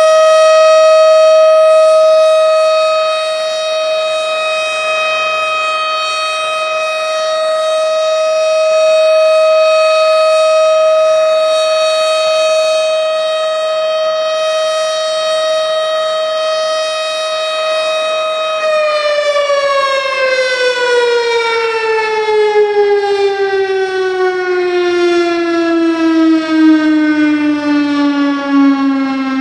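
Tornado warning siren sounding a steady wail, slowly swelling and fading in loudness, then about two-thirds of the way through its pitch begins sliding steadily downward as it winds down.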